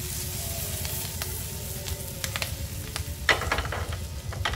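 Julienned ginger and slit green chillies sizzling and crackling in hot butter and oil in a frying pan, with a few sharper clicks about three seconds in.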